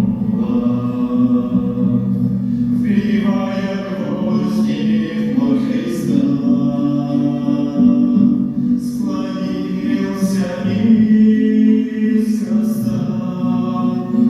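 A song sung by several voices together over a sustained low accompaniment, the voices moving in long held phrases.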